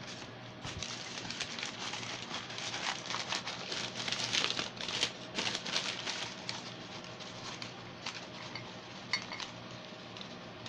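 Hands rummaging through a plastic tote of loose plastic action figures and packaged items: irregular clicking, clattering and crinkling of hard plastic and packaging, busiest through the middle and thinning out towards the end.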